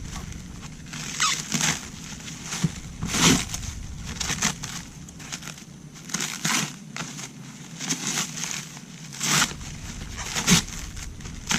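Irregular handling noises of parts being worked on by hand: short scrapes, rustles and light knocks every second or so, a few of them sharp.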